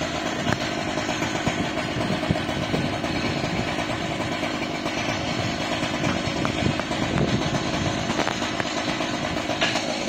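Chainsaw on an Alaskan chainsaw mill running steadily under load, ripping a slab lengthwise from a pine log.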